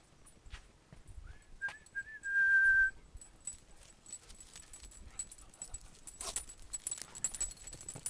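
A person whistling: a few short rising-and-falling chirps, then one held, clear note lasting under a second. About a second later comes a string of light, quick clicks and jingles that runs on to the end.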